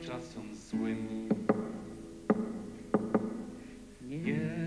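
Instrumental accompaniment to a Polish protest folk song: held chords, each struck sharply several times, fading slowly between strikes, with the singing voice coming back in near the end.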